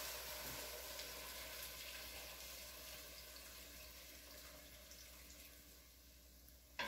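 Beef broth poured from a glass measuring jug into a hot pot of seared onions and mushrooms, making a faint sizzle that slowly dies away. A single sharp click near the end.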